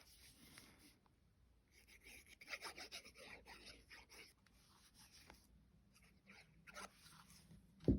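Faint scratching and rubbing of paper and card as small die-cut pieces are handled and glued in place, with a few light taps near the end.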